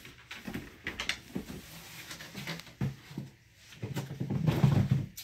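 Rustling, scraping and light knocks of cardboard and packed goods as someone rummages through a shipping box, louder for about a second near the end.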